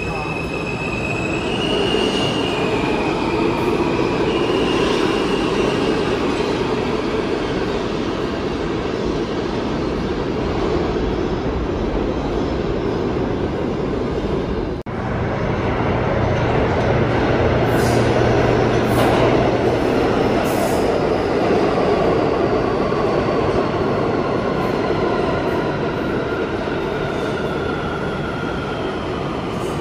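New York City subway train running through a station: steady rumble and clatter, with thin high wheel squeal early on. The sound drops out for an instant about halfway, then a high whine falls slowly in pitch over the last several seconds.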